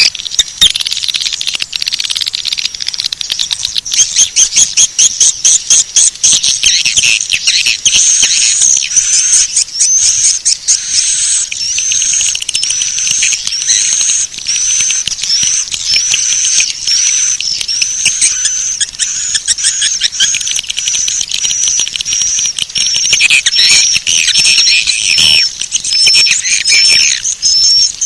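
Swiftlet call-sound lure track, the kind played at swiftlet houses to draw birds in to nest. It starts as dense twittering and rapid clicking, and from about a third of the way in settles into a short rising chirp repeated a little more often than once a second over the twittering.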